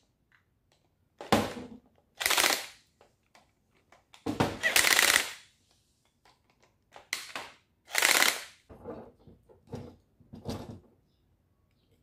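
Cordless drill-driver whirring in a series of short bursts, about eight, one of them about a second long near the middle, as it backs screws out of a palm sander's plastic housing.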